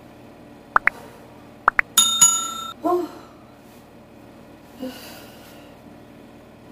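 Subscribe-button sound effect: two pairs of quick clicks, then a bright bell-like notification ding struck twice in quick succession, followed by a short vocal sound about three seconds in.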